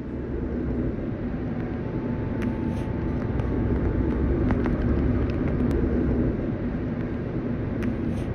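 A car driving along a road: a steady low rumble of engine and road noise.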